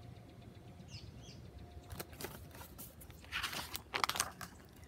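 Paper rustling as a picture book's pages are handled and turned, in a few quick bursts over the last second and a half, with a faint bird chirping about a second in.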